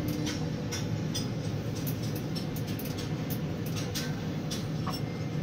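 Steady low machinery hum inside a tower crane's operator cab, with faint scattered clicks.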